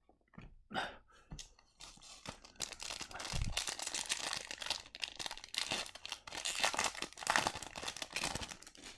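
A trading-card pack wrapper being torn open and crinkled in the hands: a run of crackling and rustling that builds after a few small crackles and stays busy until near the end.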